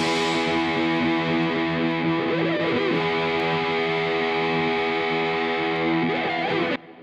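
Background music: distorted electric guitar holding sustained notes, with a couple of pitch bends. It cuts off suddenly near the end, leaving a short fading tail.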